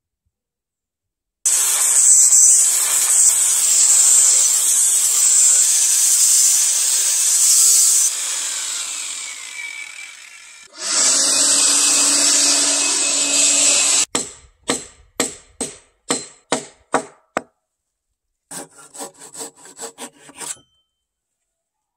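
Handheld angle grinder with an abrasive disc grinding the surface of a wooden beam: a loud rasping hiss over the motor's whine in two long runs. Near the middle it breaks into about nine short bursts, roughly three a second, then a quick cluster of rasps.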